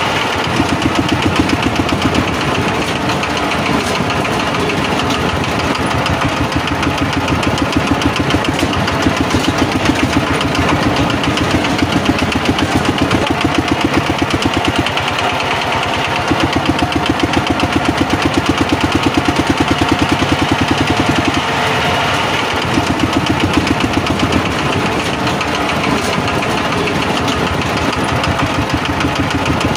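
Tractor engine running with a steady, rapid chugging.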